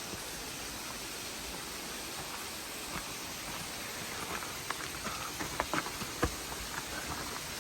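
Waterfall rushing close by, a steady hiss of falling water and spray, with scattered sharp splashes and taps in the second half.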